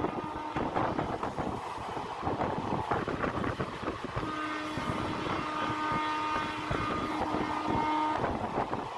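Moving express train heard from an open coach door: the rumble and clatter of wheels on the rails, with the locomotive horn sounding one long steady blast of about four seconds starting a little past the middle.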